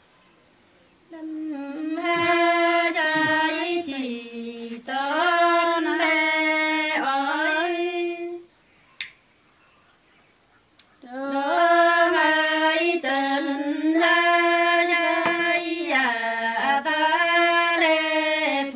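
A woman singing unaccompanied in the Nùng call-and-response (hát đối đáp) folk style. Long held notes slide slowly down and back up, in two phrases with a pause of about two seconds between them.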